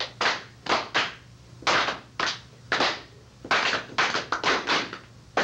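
A series of about a dozen sharp taps at uneven intervals, each with a brief ring.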